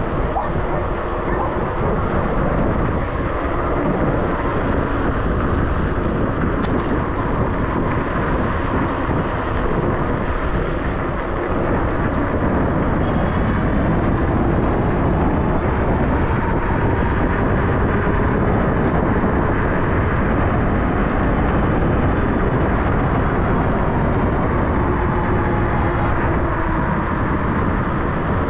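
ENGWE X24 electric bike riding over a rough off-road track: steady wind buffeting on the microphone and tyre rumble, with a faint whine that drifts up and down in pitch.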